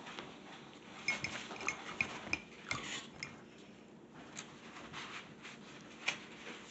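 A paintbrush clinking against a ceramic water mug: a quick run of five or six light ringing clinks about a second in, then scattered taps later, one sharper near the end.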